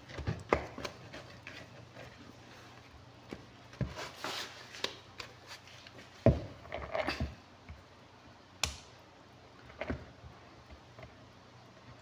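Bread dough being kneaded by hand in a plastic mixing bowl, with the bowl shifting and knocking on a tiled countertop. It gives scattered, irregular knocks and handling noises, the loudest about six seconds in.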